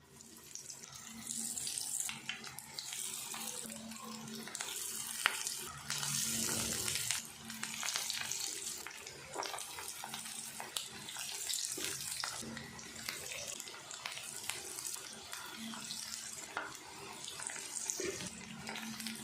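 Chicken balls deep-frying in hot oil: a steady sizzling hiss that swells in the first second or two and comes and goes in waves, with scattered pops and crackles.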